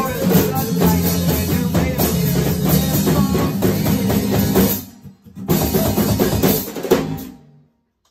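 Small band playing together: strummed acoustic guitar, bass guitar and percussion hit with drumsticks. The music stops sharply about five seconds in, comes back for a short final burst, and ends abruptly as the song finishes.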